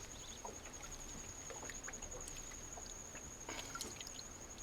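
Faint water drips and small splashes as a fish is let back into the river, with scattered small ticks. A steady high-pitched insect trill runs behind them.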